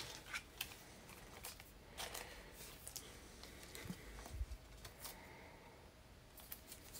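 Faint, scattered soft clicks and rustles of trading cards being handled.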